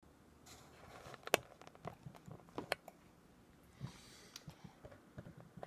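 A toddler eating diced watermelon with her fingers from a plastic tub: scattered small clicks and taps of her hand in the tub and wet mouth sounds, with one sharper click a little over a second in.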